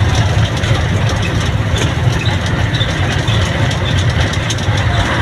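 Vehicle engine and road noise: a steady low rumble heard from aboard a moving vehicle.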